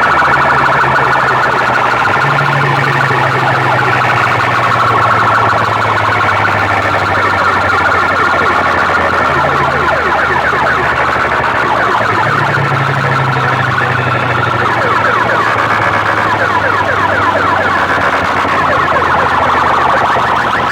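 Loud siren-like electronic warble blasted through a large DJ sound-box rig, over a deep bass drone that shifts pitch several times.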